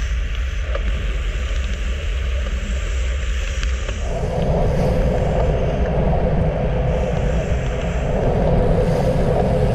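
Wind buffeting an action camera's microphone on a road bike riding at about 38 km/h, a steady low rumble and rush that gets louder about four seconds in.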